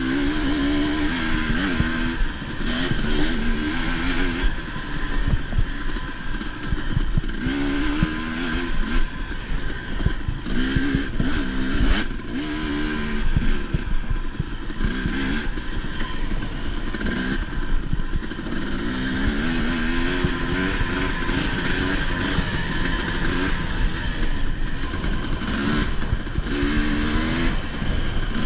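Enduro dirt bike engine ridden hard, revving up and falling back over and over as the throttle is worked, with scattered knocks and clatter from the bike.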